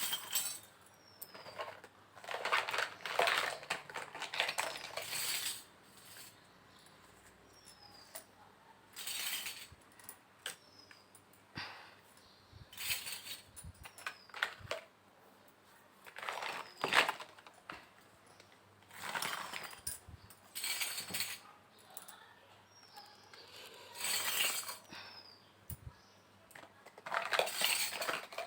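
Small pieces of a miniature toy kitchen set being handled, with clinks, taps and rustles in short bursts every few seconds.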